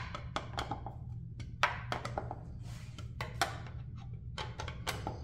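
Hand screwdriver clicking and tapping against screw heads and a plastic airbox lid as the screws are snugged down by hand, a run of irregular sharp clicks. A steady low hum runs underneath.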